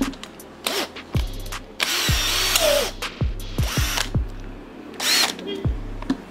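Makita HP331D cordless drill motor run in about four short bursts, the longest about a second long, its pitch rising and falling as the trigger varies the speed.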